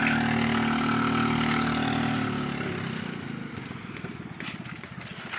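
A motor engine running steadily close by, then fading away about halfway through.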